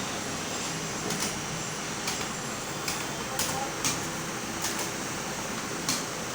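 Computer keyboard keys being struck at an irregular, unhurried pace, about eight separate clicks, over a steady background hiss.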